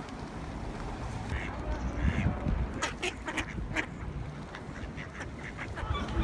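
Mallard ducks quacking, a run of short calls about midway, over a low wind rumble on the microphone.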